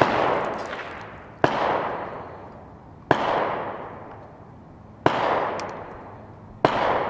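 Five gunshots in a row, about one and a half to two seconds apart, each trailing a long echo that fades away.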